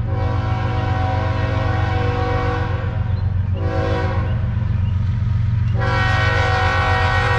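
Air horn of an approaching CSX freight locomotive, sounding as steady chord tones with breaks in its pattern, as at a grade crossing. It comes in fuller and louder near six seconds in.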